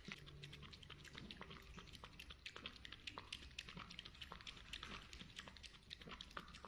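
Domestic cat lapping liquid from a ceramic plate: faint, quick, wet clicks of the tongue at about four or five laps a second.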